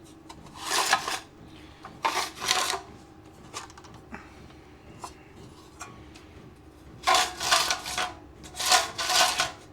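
Plastic or metal parts rubbing and scraping in four short bursts as a lawn mower's oil fill tube is worked back into its hole in the engine.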